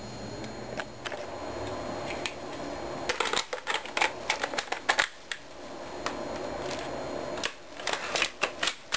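Rapid runs of mechanical clicks from a Mauser SR airsoft sniper rifle being handled at its receiver and magazine well: a few single clicks about a second in, a quick run of clicks from about three to five seconds in, and another run near the end.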